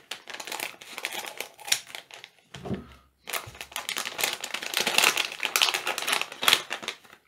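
Scissors snipping into a LEGO Minifigures plastic blind bag, then the thin plastic packet crinkling as hands pull it open, a dense run of small crackles with a short break about three seconds in.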